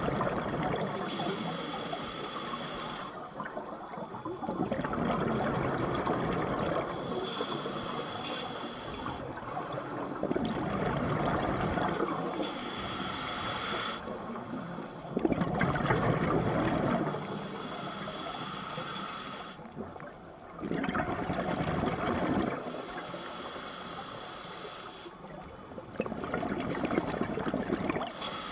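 Scuba regulator breathing underwater: bubbling rushes of exhaled air recur about every four to five seconds, with quieter inhalation in between.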